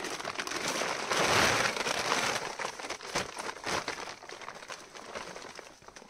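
Leaves and twigs of a pear tree rustling and crackling as branches are pulled and pears picked, loudest about a second or two in, then easing off.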